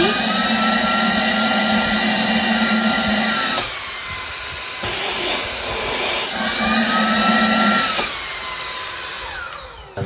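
Cordless vacuum cleaner refitted with a 100,000 RPM brushless (BLDC) motor, running on its low speed: a steady high whine whose pitch drops about a third of the way in, climbs again past the middle, drops again, and winds down near the end.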